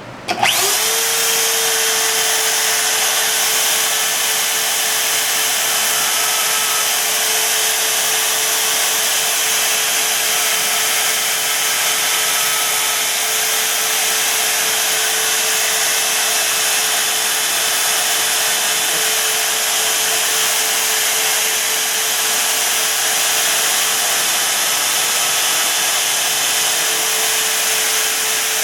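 Bandsaw motor starting up, rising in pitch within the first second, then running steadily with a constant hum and hiss while trimming excess material from a knife part.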